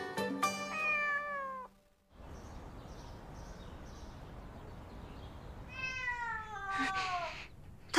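A cat meowing twice, each a long meow falling in pitch: the first about a second in as plucked-string music ends, the second about six seconds in over a faint steady hiss.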